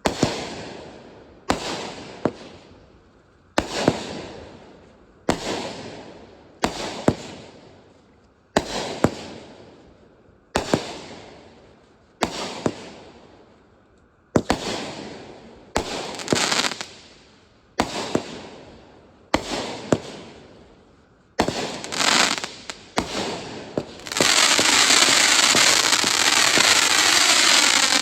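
Consumer fireworks going off: a string of sharp bangs, one every second or two, each dying away over about a second. Near the end a dense, continuous crackling takes over.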